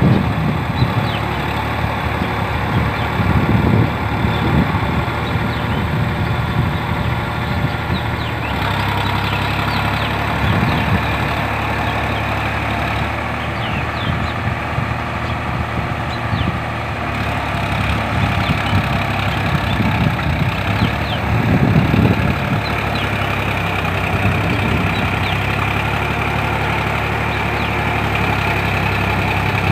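Preet 4549 tractor's diesel engine running steadily, heard across the field as it pulls a 5½-foot rotavator through the flooded paddy field.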